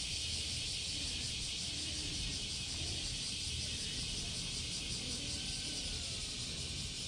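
Steady outdoor ambience: an even, high-pitched hiss over a low rumble, with no distinct events.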